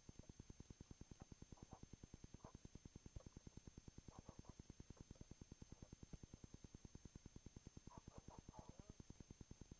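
Near silence: a faint low hum pulsing about nine times a second, with a few soft, faint rustles.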